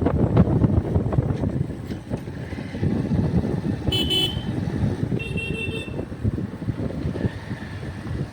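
Steady wind rumble on the microphone, with two short high-pitched vehicle horn toots about four and five seconds in.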